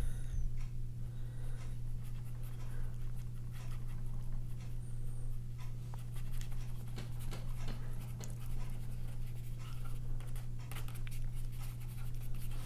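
A small paintbrush dabbing and scraping acrylic gouache onto sketchbook paper in short, irregular strokes, over a steady low hum.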